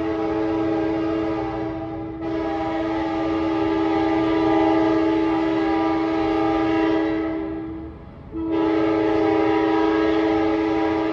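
Sounder commuter train's multi-note air horn sounding a steady chord in long held blasts. It dips about two seconds in, breaks off briefly near eight seconds, then sounds again.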